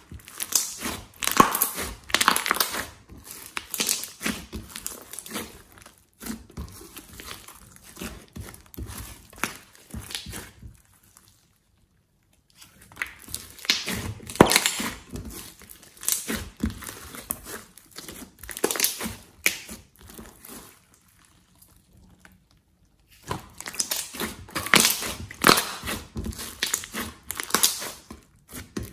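Hands squeezing and kneading glossy slime in a glass dish: dense sticky crackling and clicking in bursts as the slime is pressed and pulled, twice dropping to near silence for a second or two.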